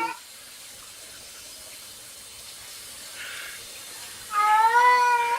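A domestic cat gives one long meow of about a second near the end, its pitch rising slightly, then falling as it trails off. A steady faint hiss fills the seconds before it.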